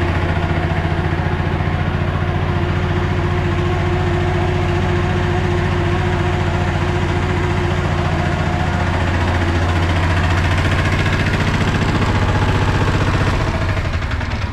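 Engine running steadily to drive the hydraulic conveyor belt of a freshly repaired machine, a constant low hum that eases slightly near the end.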